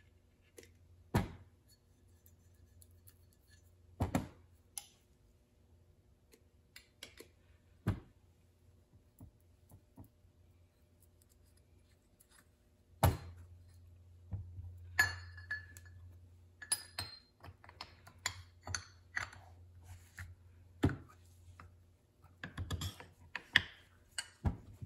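Scattered clinks and knocks of metal engine parts being handled on a workbench: an aluminum connecting rod, piston and wrist pin being oiled and fitted together. The knocks are sparse at first and come thick and fast in the second half.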